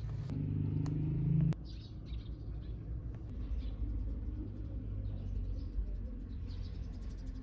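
Faint small birds chirping over a steady low rumble of outdoor background. A low hum cuts off abruptly about a second and a half in.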